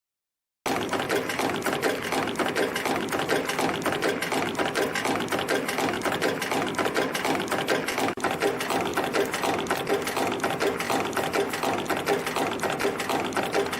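YHM CT-210 CNC micro spring machine running and coiling springs: a fast, even mechanical clatter. It starts abruptly just under a second in and breaks briefly about eight seconds in.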